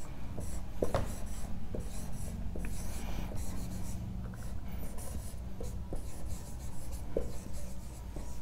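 Whiteboard marker writing on a whiteboard: short scattered squeaks and taps of the felt tip as the figures and letters are drawn, over a low steady hum.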